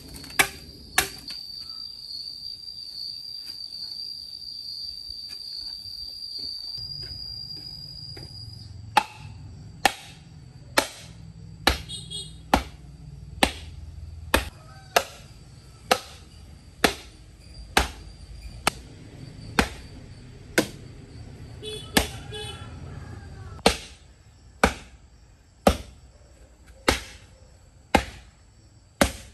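Knife chopping on a cutting board: a couple of strokes at the start, then a pause, then steady chops about one a second from about nine seconds in. A steady high insect trill runs through the pause and stops when the steady chopping begins.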